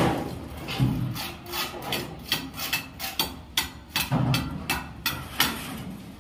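Repeated short scraping strokes, about three a second and slightly irregular, with two duller knocks, about a second in and about four seconds in.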